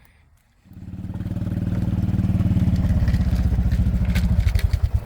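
A small vehicle engine comes in under a second in, builds over about a second, then runs steadily with a fast, even pulsing.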